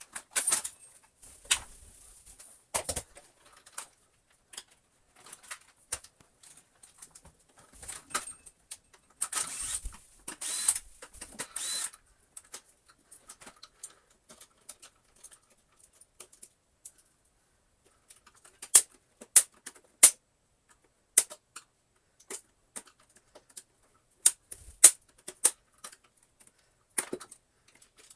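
Hard plastic parts of a Dyson DC25 vacuum floor head being handled and taken apart: scattered clicks and knocks, with scraping and rustling about ten seconds in and a run of sharp clicks later on.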